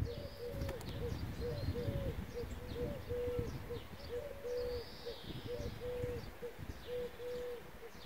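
Birds calling in a garden: a steady string of short, low notes, two or three a second, with higher chirps and whistles above them and a low rumble underneath.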